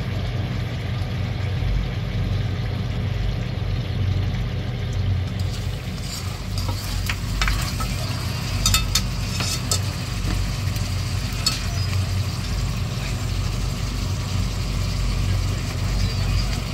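Pork ribs bubbling and sizzling in a stainless-steel wok in a soy sauce, vinegar and tuna-extract sauce, with a steady low hum underneath. A spatula and spoon scrape and clink against the pan several times in the middle.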